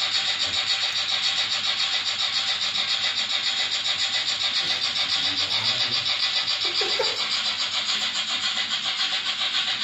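Märklin model steam locomotive running on its layout: a steady, fast, evenly pulsing hiss, like the steam chuff of its sound unit.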